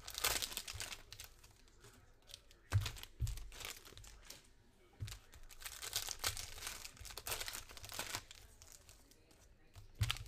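Foil trading-card pack wrapper being crinkled and torn open by hand, in bursts. There are a few dull thumps of handling on the table around three seconds in and near the end.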